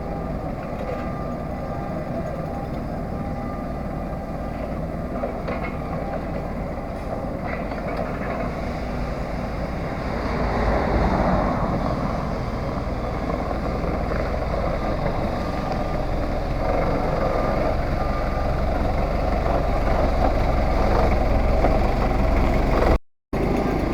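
Three-wheeled farm tractor's engine running steadily as it hauls a load, growing louder about ten seconds in, with a brief dropout near the end.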